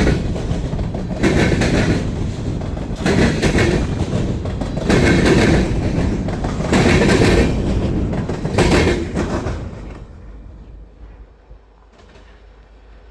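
Norfolk Southern freight train cars rolling past, wheels clattering over the rail joints in a regular beat about every two seconds. About ten seconds in the clatter fades away, leaving a low steady rumble.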